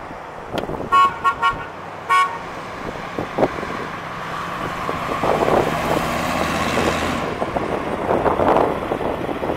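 Several short car-horn toots in the first two seconds, then the 1979 Chevrolet C10 pickup's 350 V8 engine running as the truck drives past, growing louder as it nears.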